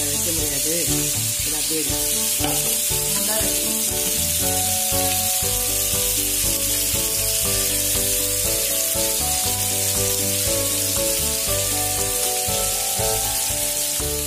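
Marinated chicken pieces shallow-frying in hot oil in a nonstick pan, a steady sizzle, with a tune playing in the background.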